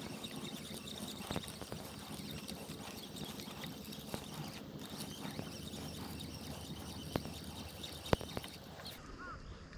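Fishing reel being cranked to bring in a small hooked fish on a bent rod, with a few sharp clicks, the loudest two near the end.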